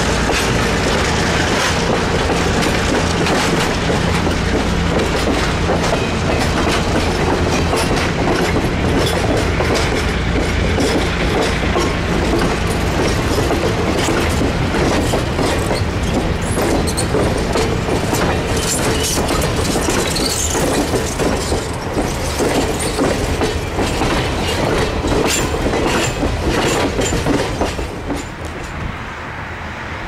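Passenger coaches rolling past close by: steady wheel-on-rail noise with repeated clicks of the wheels over rail joints and a few short high wheel squeals. The sound drops off near the end.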